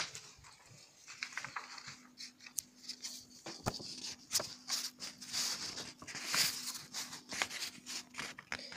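Light rustling and scattered small clicks of paper and phone handling, with a faint steady hum underneath.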